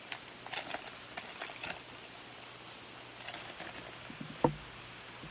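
Trading cards being handled and slid off a stack, with soft rustling and one sharp tap at about four and a half seconds.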